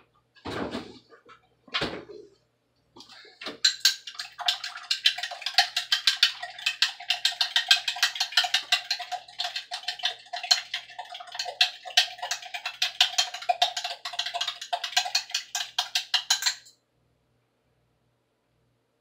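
A fork beating egg and milk in a glass cup: a fast, steady run of clinks against the glass for about thirteen seconds, stopping suddenly. Before it, a couple of knocks as the refrigerator door shuts.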